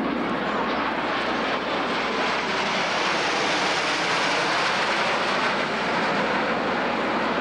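Jet noise from a Blue Angels F/A-18 Hornet flying by: a loud, steady rushing roar that grows brighter and fuller toward the middle and eases slightly as the jet passes.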